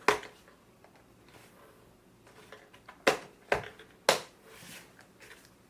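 Plastic parts of a Joovy Tricycoo toddler tricycle being pushed together, giving four sharp clicks: one right at the start, then three close together about three to four seconds in. A click is the sign that the part has snapped into place and is installed.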